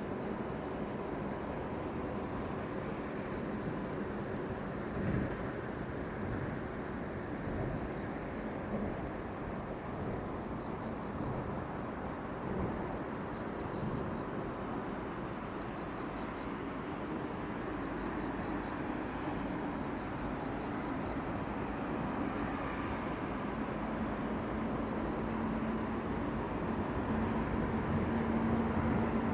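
Steady outdoor background noise, with short high chirping trills every couple of seconds and a low hum growing louder near the end.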